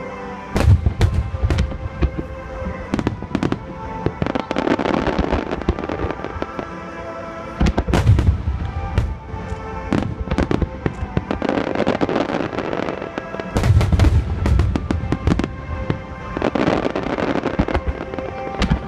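Aerial fireworks shells bursting in quick succession, with sharp reports and spells of crackling. Deep booms cluster about half a second in, around eight seconds and around fourteen seconds, and music plays throughout.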